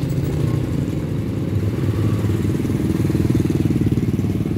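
An engine running steadily, getting louder for a while about two and a half seconds in.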